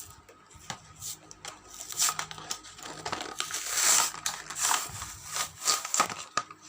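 Toy packaging being torn open and crinkled by hand: irregular crackling and rustling with a few sharper tearing bursts, loudest about two and four seconds in.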